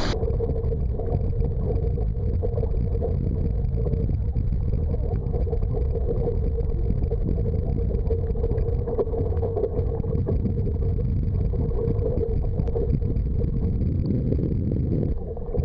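Steady, muffled water churning heard through a camera held underwater beside a paddle boat: a continuous low rumble with a steady hum over it.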